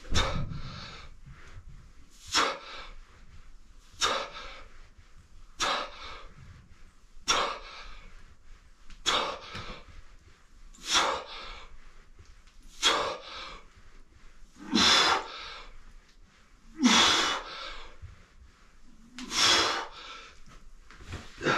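A man breathing out hard in short, forceful puffs, about every two seconds, one breath for each repetition of bodyweight dips; the last few breaths come with a strained grunt.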